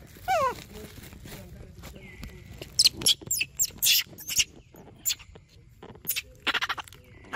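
Baby macaques squealing over a corn cob held out by hand. A falling call comes just after the start, a string of shrill, sweeping squeals follows in the middle, and a few more come near the end.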